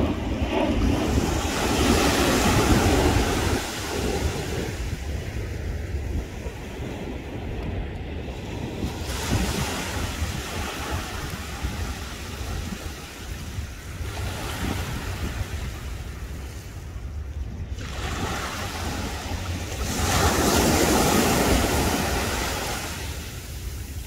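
Sea surf washing up a sandy beach in slow surges every few seconds, with wind rumbling on the microphone.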